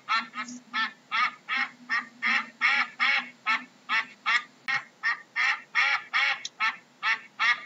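Duck quacking in a rapid, steady series of short calls, about three a second.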